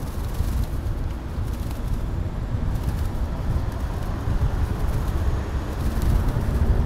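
Wind rumbling on the microphone of a camera carried on a moving bicycle, a steady low buffeting with no clear tones.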